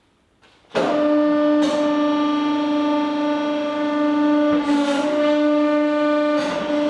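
Hydraulic press pump running under load as the ram comes down: a loud, steady drone of one unchanging pitch that starts suddenly under a second in, with a few short rushing surges, about a second in, near the middle and near the end.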